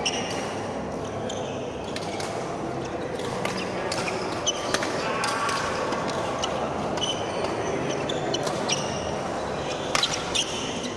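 Badminton rally in a large indoor hall: sharp racket strikes on the shuttlecock and short squeaks of shoes on the court floor, over a steady murmur of background voices. The loudest hits come about four and a half seconds in and again about ten seconds in.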